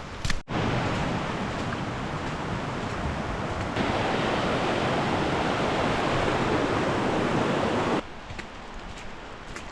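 Steady roar of rushing water, an even hiss-like wash that gets louder partway through with an abrupt change and cuts off suddenly near the end to a much quieter background.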